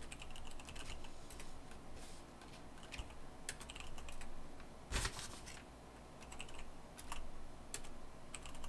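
Typing on a computer keyboard: irregular key clicks with short pauses, and one heavier keystroke about halfway through.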